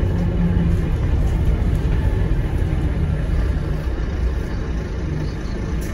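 Euro 3 Volvo D9B diesel engine of a Volvo B9TL double-decker bus running under way, a steady low rumble heard from inside the passenger saloon, easing off slightly in the second half.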